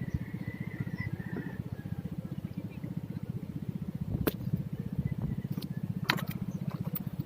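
A small engine running steadily, with a fast even pulse. Two sharp clicks sound in the second half.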